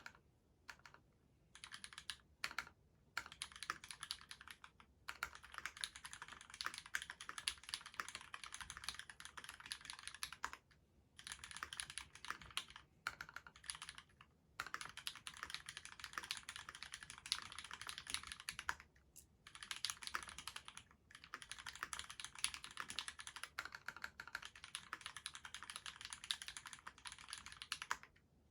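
Fast typing on a mechanical keyboard with lubed linear Cherry retooled black switches, a stainless steel plate and GMK doubleshot keycaps: continuous rapid keystroke clacks in long runs, broken by brief pauses now and then.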